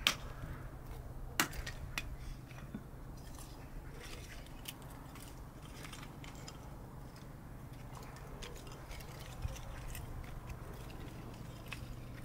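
Small hatchet chopping thin wooden sticks into kindling, with a few sharp chops in the first two seconds, then lighter clicks and knocks as the split pieces are gathered, over a low steady hum.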